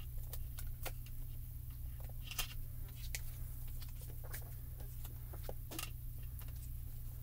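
Scattered light plastic clicks and taps as clear stamps are handled and pulled from their clear plastic carrier sheet, the sharpest about two and a half seconds in, over a steady low hum.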